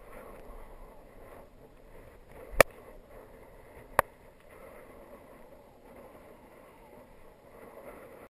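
Two sharp clicks about a second and a half apart over faint, steady wind and rolling noise as a road bike comes to a stop; the first click has a low thud just before it.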